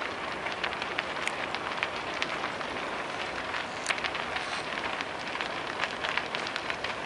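A large wooden structure burning: the steady rush of big flames with frequent sharp crackles and pops of burning timber.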